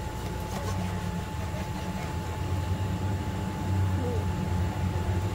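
Steady low machine hum with a faint, thin steady tone above it, and a few soft knife cuts through squid on a plastic cutting board.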